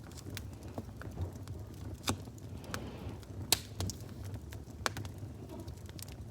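Wood fire crackling: irregular sharp pops and snaps over a steady low rumble, with the loudest pop about halfway through.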